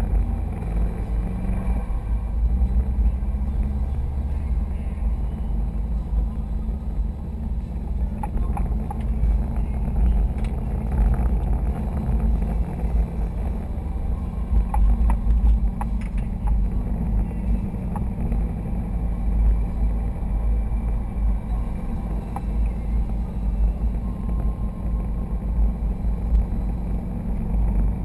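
Low, steady drone inside the cabin of a 2011 Subaru STI driving at about 40 mph with the windows closed: engine and road noise mixed with the A/C running.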